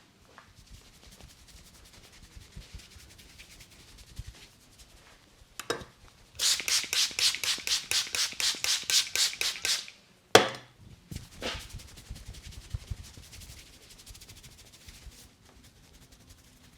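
Barber's hands striking a head in a head massage: a quick run of about twenty sharp slapping taps, about six a second, lasting some three and a half seconds, then one sharp, loud snap, the loudest sound here. Fainter rubbing and clicks of hands on head and skin before and after.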